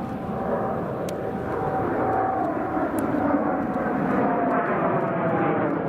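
Jet aircraft passing in flight: steady jet engine noise with a thin whine that slowly falls in pitch.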